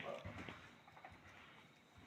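Faint kitchen handling sounds as spices are added to raw beef in a bowl: a soft knock and rustle near the start, then quieter scraping.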